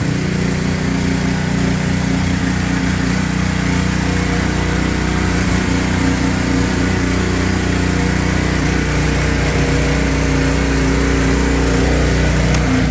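Small engine of a pressure washer running steadily under load, with an even hiss over it.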